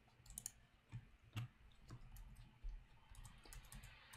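Faint computer mouse clicks, a dozen or so at irregular intervals, over near silence.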